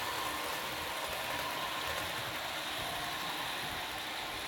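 Model Amtrak passenger train rolling past on the track, with the diesel engine sound from a Soundtraxx Tsunami 2 sound decoder running steadily, easing off slightly as the train moves away.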